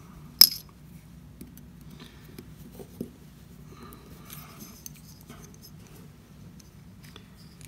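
Steel piston ring being dragged by hand around the ring groove of a Jonsered 625 chainsaw piston: faint scraping and handling noise with a sharp metallic click about half a second in and a smaller one about three seconds in. The ring is being used to clean up a stepped, partly closed-up spot in the groove so that the ring slides freely. A steady low hum runs underneath.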